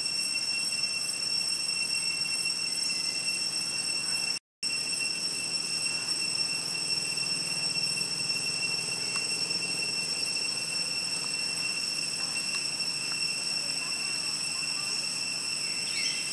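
Insects buzzing in a steady, high-pitched chorus, holding several shrill tones at once, with a brief cut-out about four and a half seconds in.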